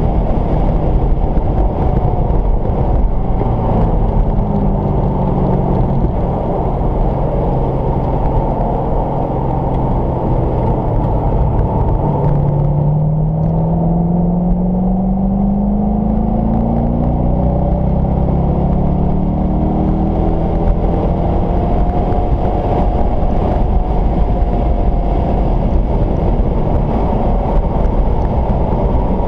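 Car engine heard from inside the cabin at speed on a track: the engine note drops as the car slows hard for a corner, then rises steadily as it accelerates out and back up to about 90 mph. Wind and road noise run underneath throughout.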